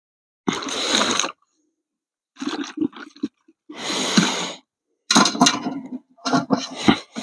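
Water poured from a plastic bottle in about five short bursts, splashing onto the ground, as a quick rinse.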